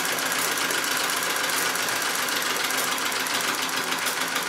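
Singer 66 treadle sewing machine running steadily, its needle stitching through a quilt in free-motion quilting with a fast, even clatter.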